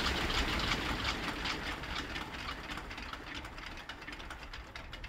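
The 1929 Ford Trimotor's radial engines idling and running down after shutdown, the propellers coasting toward a stop. The firing beats slow and fade steadily.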